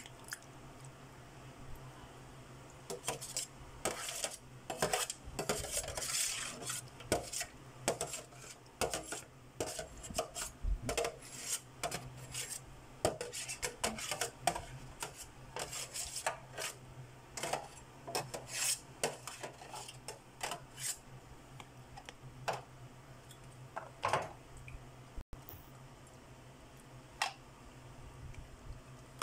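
A spoon clinking and scraping against the container while buko salad is mixed, in irregular strokes that thin out after about 20 seconds, with a few last clinks near the end. A low steady hum runs underneath.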